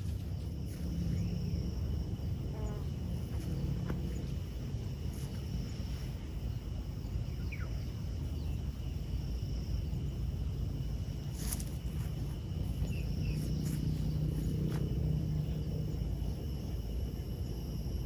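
Natural ambience: insects droning in two steady high tones, over a low rumble of wind on the microphone, with a few faint short bird chirps.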